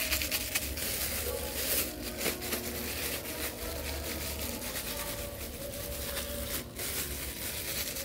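Thin plastic bag crinkling and rustling in irregular crackles as soft avocado-and-flour bait dough is squeezed and kneaded inside it by hand, over a steady low hum.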